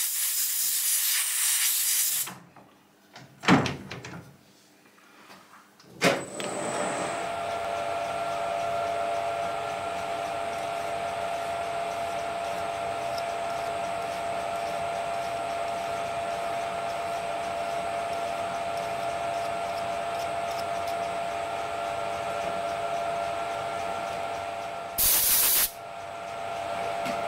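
Compressed-air blast hissing for about two seconds, blowing chips off a freshly cut thread. After a click, the Colchester 1800 manual lathe starts about six seconds in and runs steadily with a whine from its gearing. A second short air blast comes near the end.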